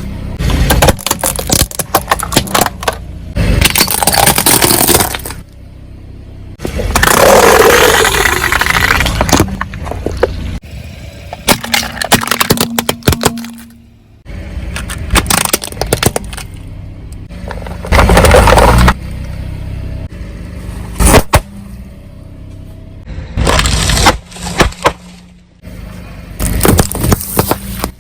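Objects being crushed under a car's tyres: repeated stretches of crunching and crackling, some lasting a second or two and some single sharp snaps, with quieter gaps between them.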